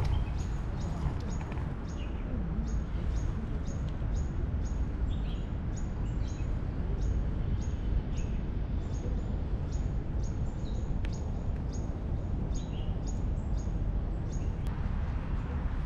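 Outdoor park ambience: a steady low rumble, with a small bird repeating short, high chirps about twice a second and now and then a lower call note.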